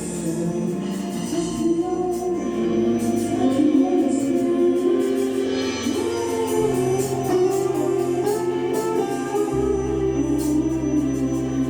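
Gospel choir singing with instrumental accompaniment: a held bass line that moves to a new note every few seconds, and light percussion hits running through.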